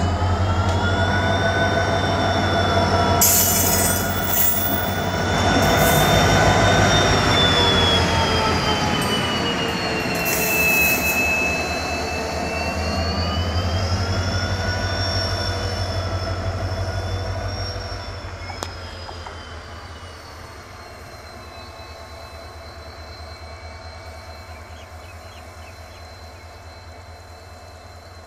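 WDG4D diesel locomotive running past and then away: a steady low engine drone with several high, wavering whining tones over it. The sound is loud for the first part and fades after about 18 seconds as the locomotive draws off.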